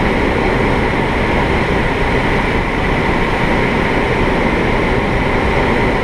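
Steady rush of air around the cockpit and canopy of a PW-6U glider in unpowered gliding flight. This is the airflow noise that glider pilots listen to as an airspeed cue: it gets louder as the glider speeds up and quieter as it slows.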